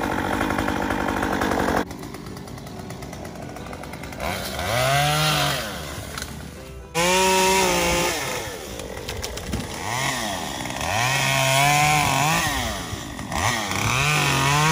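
Two-stroke chainsaw cutting limbs from a fallen tree: a steady high engine note for about the first two seconds, then the engine revving up and easing back about four times as it cuts.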